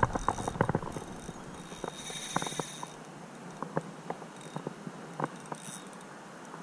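Ultralight spinning reel being worked while playing a hooked smallmouth bass: scattered, irregular light clicks and ticks of the reel mechanism.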